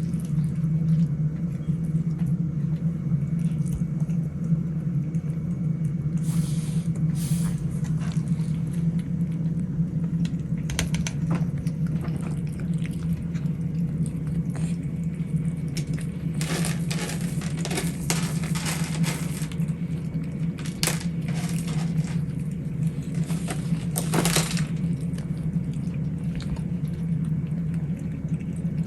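Cats eating from a dish: scattered clicks and ticks of chewing and of food against the bowl, thickest past the middle, over a steady low hum.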